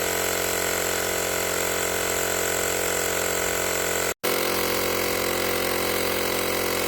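Handheld portable air compressor (tire inflator) running steadily as it pumps air into a flat tire, a constant buzzing motor-and-pump drone. It cuts out for a split second about four seconds in and resumes unchanged.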